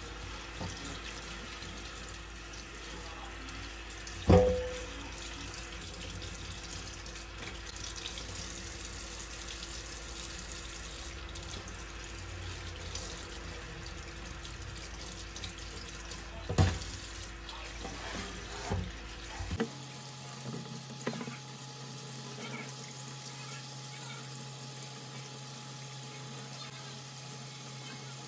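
Kitchen tap running into a sink, with a sharp knock about four seconds in, another about sixteen seconds in, and a few lighter clatters after it.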